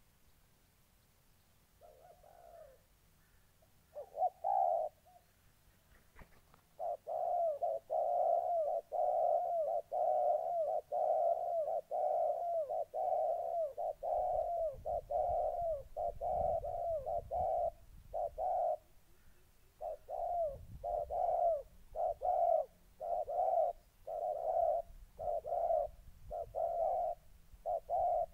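Spotted doves giving rapid, repeated short coos in a territorial confrontation between a caged decoy dove and a wild dove eager to fight. A few coos come about 2 and 4 seconds in, then a near-continuous run of coos starts about 7 seconds in and breaks into separate coos less than a second apart from about 18 seconds.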